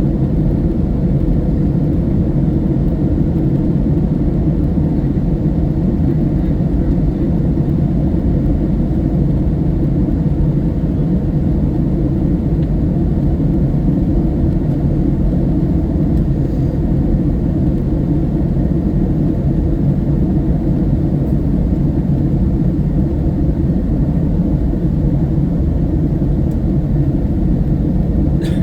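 Steady low rumble of a Boeing 757-200 in flight: engine and airflow noise as heard inside the cabin.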